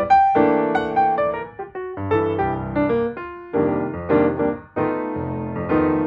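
Background piano music: a steady run of single notes and chords, with brief breaks between phrases about two seconds in and again near five seconds.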